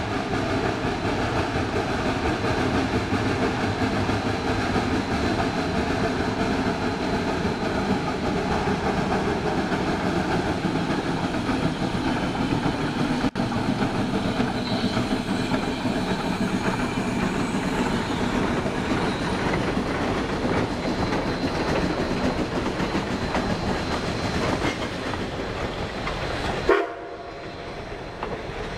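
Geared steam locomotive working hard up a grade as it passes close by, its exhaust and running gear making a dense, steady din, with its cars rolling past behind it. Near the end the sound drops abruptly to a lower level.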